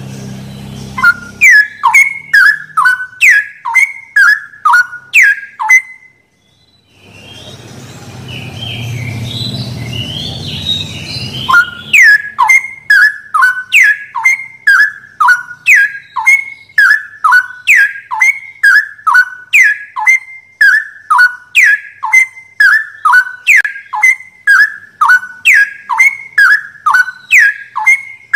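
Straw-headed bulbul singing a fast series of loud, sharp whistled notes, about two a second, each gliding quickly in pitch. The run breaks off for a few seconds of low rumbling noise with faint chirps, then resumes about halfway through.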